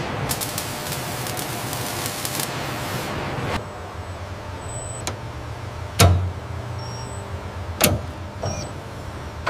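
Robotic welding arms give a loud hissing crackle with many sharp snaps. About three and a half seconds in it cuts to a low machine hum, with four metallic clunks from the automated bolting tooling; the second clunk, about six seconds in, is the loudest and has a low thump.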